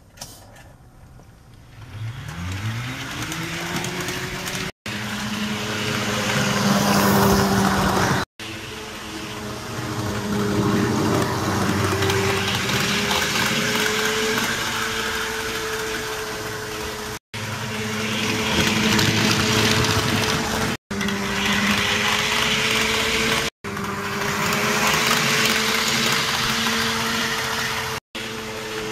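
Motor of a DCC-fitted Bachmann Class 170 two-car OO gauge model train rising in pitch as it picks up speed about two seconds in, then running with a steady, slightly wavering whine over the rumble of its wheels on the track. The sound drops out briefly six times.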